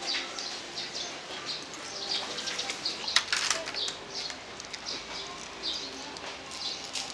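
Small birds chirping repeatedly, short high calls several times a second, mixed with close-up chewing and a few sharp mouth clicks from someone eating.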